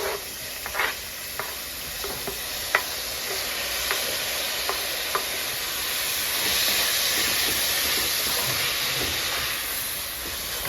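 Chopped onions, garlic, tomatoes, peppers and celery sizzling in hot olive oil in a pot, with a spoon clicking against the pot as they are stirred in the first few seconds. The sizzle grows louder about halfway through.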